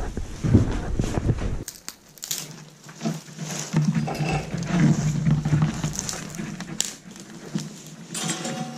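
Dry spruce twigs rustling, crackling and snapping as handfuls of kindling are pushed into a steel wood stove's firebox. A low rumble cuts off under two seconds in, and a low whine sounds in the middle and again near the end.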